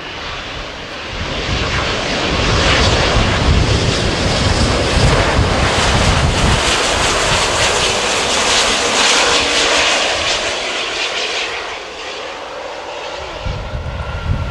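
Virgin Atlantic Airbus A350 jet airliner on the runway, its twin jet engines running loud with a deep rumble and a high hiss. The noise swells about a second and a half in, holds, and fades near the end as the jet moves away.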